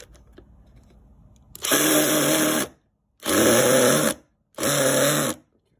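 Cordless drill driving wood screws into a plywood stool base: the motor runs in three short bursts of about a second each, stopping and starting again as the screw is driven in.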